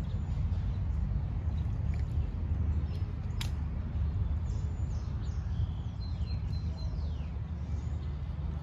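Outdoor ambience: a steady low rumble under faint bird chirps and short downward-sweeping calls in the second half, with a single sharp click about three and a half seconds in.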